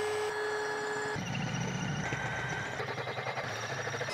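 Electric drill boring a hole through a welded steel flat-plate bracket held in a vise. The motor whines steadily at first, then about a second in the sound turns rougher and lower as the twist bit works through the steel.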